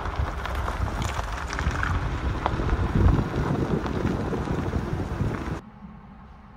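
Suzuki Jimny driving on a gravel track: tyres crunching over loose stones with scattered clicks of gravel, and wind buffeting the microphone. About five and a half seconds in it cuts suddenly to a much quieter low, steady hum inside the cab.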